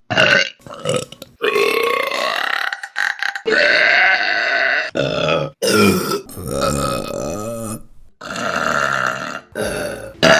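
A rapid string of women's belches, one after another: some short and some long and drawn out, with pitch bending up and down. Several start and stop abruptly.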